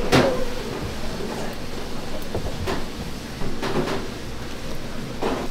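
Metal ladle scraping and knocking in a plastic tub of thick chili sauce while scooping: a sharp scrape right at the start, then a few more over the following seconds.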